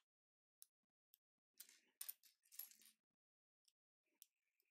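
Faint clicks and clatter of small plastic LEGO bricks being handled and picked from a loose pile on a table, a few single clicks around a denser run of rattling in the middle.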